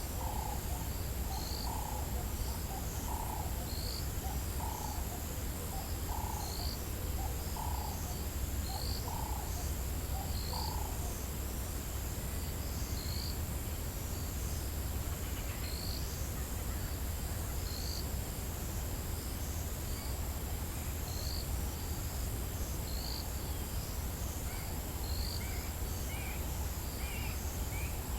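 African bush dawn chorus of birds and insects. A bird gives a run of low repeated call notes, about one and a half a second, that stop about ten seconds in, while short high chirps recur every second or two over a steady high insect trill and a low rumble.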